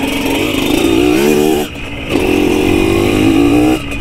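Dirt bike engine revving under throttle over rough ground: the pitch rises about a second in, drops briefly about halfway, then holds high before easing off near the end.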